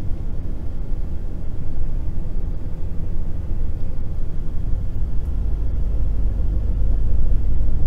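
Steady low rumble of engine and tyre noise heard from inside a moving road vehicle's cab.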